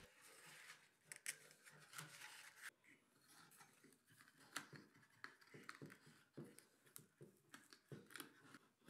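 Near silence with faint scattered clicks and rustles of a Velcro strap being threaded through the slots of a laser-cut wooden model-plane fuselage and looped by hand.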